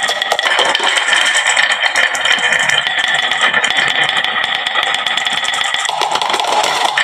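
Many marbles rolling and clattering down a wooden marble-run slope: a loud, continuous dense rattle of small clicks with a ringing edge. Its character shifts briefly about six seconds in.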